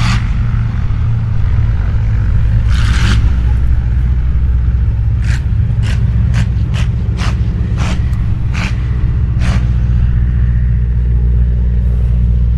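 Boeing Stearman biplane's radial engine running with a steady low drone as the aircraft rolls along the grass strip. A quick series of sharp clicks comes through in the middle.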